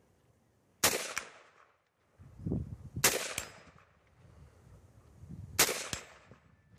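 AR-15 rifle fired in slow, single aimed shots: three sharp cracks about two and a half seconds apart, and a fourth right at the end. Each is followed a moment later by a fainter second report.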